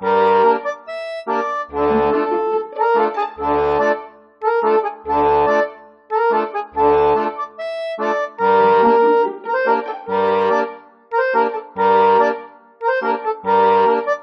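Background music: bright repeating chords over a bass note that returns about every second and a half to two seconds.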